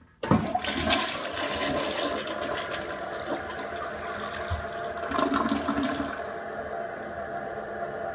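2006 Mansfield Alto toilet with a flush-tower valve flushing: a sudden rush of water into the bowl about a quarter of a second in, swirling down the drain with a second surge around five seconds in. After about six seconds it settles to a quieter, steady rush of the bowl and tank refilling.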